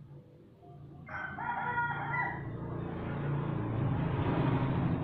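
A rooster crows once, about a second in. After the crow, the rumble of an approaching motor vehicle swells and keeps getting louder.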